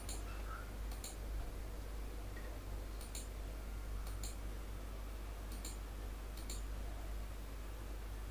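Computer mouse clicking about six times, a second or two apart, each click a quick double tick of press and release, over a steady low hum.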